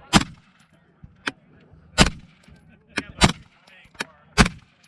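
Desert Tech MDRX bullpup rifle firing four loud single shots spaced about a second or two apart, the last the loudest, with two fainter sharp cracks in between.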